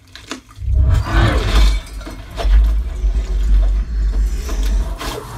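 Film soundtrack played loud through a Dolby Atmos home theater system with SVS subwoofers: after a short hush, a heavy deep bass rumble comes in about a second in, with loud effects and music over it.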